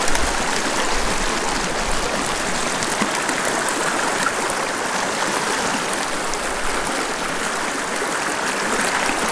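Shallow mountain stream rushing over rocks in a fast riffle, a steady, even rush of water.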